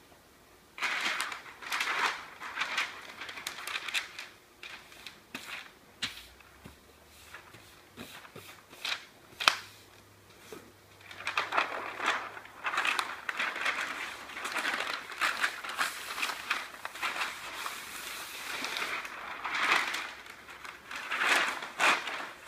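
Sheets of newsprint rustling and crinkling as they are pressed onto and peeled off an inked polymer printing plate to blot up solvent-loosened ink. Irregular crackly rustles start about a second in, with a few sharp snaps of paper.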